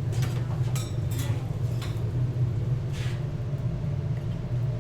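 A steady low mechanical hum, with a few light clicks and taps scattered through.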